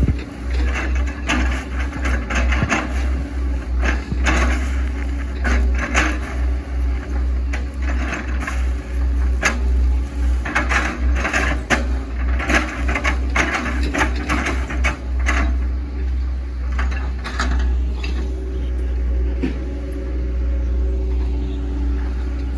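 Hitachi ZX110 MF excavator working, its diesel engine giving a deep steady rumble under many irregular cracks and crunches of an oil palm trunk being broken up. The cracking thins out after about fifteen seconds, leaving a steadier engine hum.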